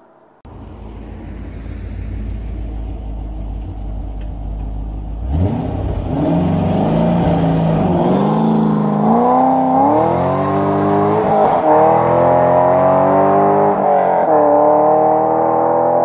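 A 2001 Corvette Z06's LS6 V8, with long-tube headers, an off-road X-pipe, test pipes in place of catalytic converters and a titanium axle-back, first runs as a steady low rumble held at about 3500 rpm. About five seconds in it takes off at wide-open throttle and gets much louder. The engine note then climbs in several rising pulls, each broken by a brief dip in pitch.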